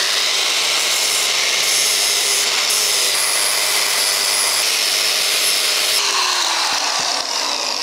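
Angle grinder with a flap disc grinding down the weld bead on a cast iron exhaust manifold, a steady abrasive grinding noise. About six seconds in the grinder comes off the metal and keeps spinning, and the sound gets a little quieter.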